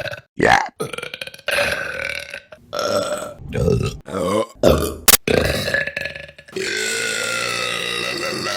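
Women burping, one clip after another: a quick run of short burps with abrupt cuts between them, then one long drawn-out burp from about six and a half seconds on.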